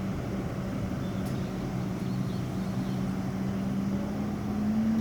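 Bus diesel engine running steadily at low revs, its pitch rising slightly near the end as the revs pick up.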